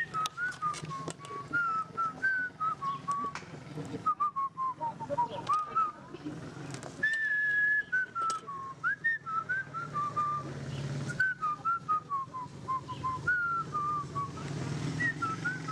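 A person whistling a tune: a single thin whistled melody that steps and slides up and down, with scattered light clicks and knocks underneath.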